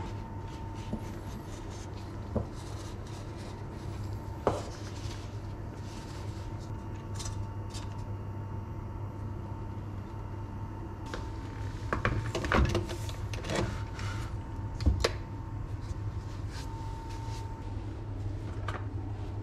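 Springform cake pan being handled on a countertop: scattered metal clicks and knocks as the cake is loosened and the pan's ring is unclasped and lifted off, with a few louder knocks past the middle. A steady low hum runs underneath.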